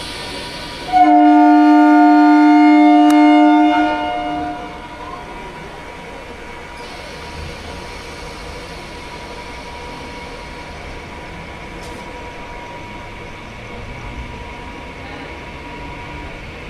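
Local train's horn sounding one loud, steady blast of about three seconds, a chord of several tones, starting about a second in and fading away. After it, the steady running noise of the train with a faint high hum.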